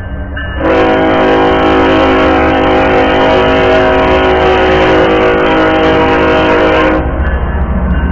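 Air horn of a BNSF ES44C4 diesel locomotive sounding one long, steady chord blast of about six seconds as the locomotive passes close by, starting about half a second in and cutting off about a second before the end. Low rumble of the engine and wheels runs underneath and is left on its own once the horn stops.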